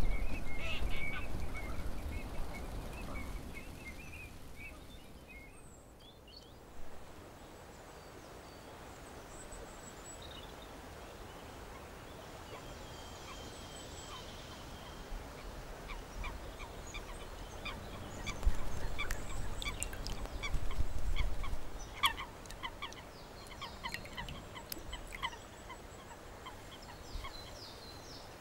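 Birds calling: a run of calls near the start, then many short chirps and ticks through the second half, with a few louder low rumbles about two-thirds of the way in.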